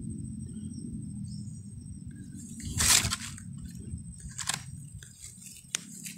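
Handling noises as a red mesh sack is moved over a pile of fruit lying in dry grass and leaves: rustles and crunches, the loudest about three seconds in and two smaller ones after it.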